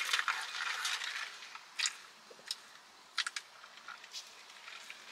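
Plastic straw being worked up and down through ice in a fountain-drink cup, giving scattered sharp clicks and crunches, then sipping through the straw.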